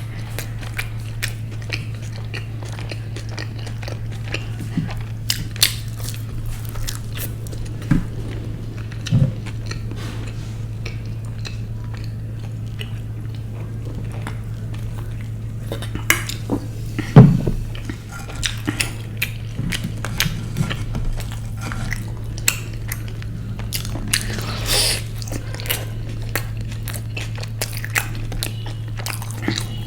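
Close-miked biting and chewing of pizza, with scattered wet mouth clicks and smacks over a steady low hum. A single sharp knock, the loudest sound, comes about seventeen seconds in.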